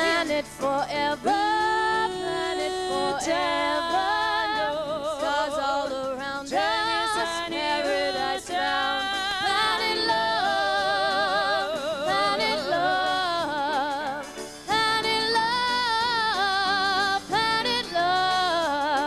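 A woman singing a wordless solo passage into a microphone, holding long notes with wide vibrato and breaking into quick ornamented runs.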